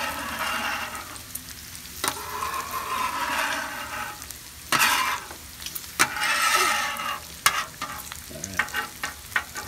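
Bacon sizzling on a steel flat-top griddle while a griddle scraper is pushed through the hot grease in strokes, scraping across the plate, with several sharp clicks of the scraper on the metal.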